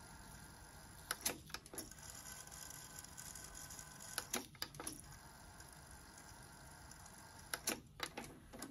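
Sony TC-KA3ES cassette deck's transport keys clicking in quick pairs, three bursts in all, over the faint steady whir of the tape mechanism winding as the tape is cued.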